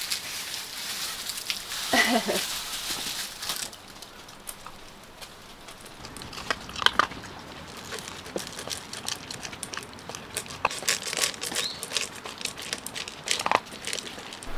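Crinkling and rustling of material being handled, with scattered light clicks and taps; a short pitched sound about two seconds in.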